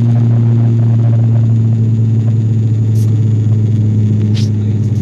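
Aircraft engines heard from inside the passenger cabin: a loud, steady, low drone. A brief click comes about three seconds in and another near the end.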